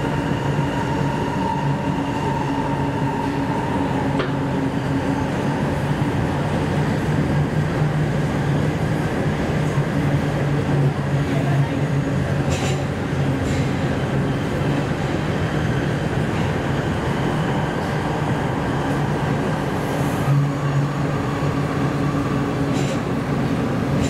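Sendai Subway Tozai Line linear-motor train running through a tunnel, heard from inside the car: a steady rumble with a low hum and a few faint clicks.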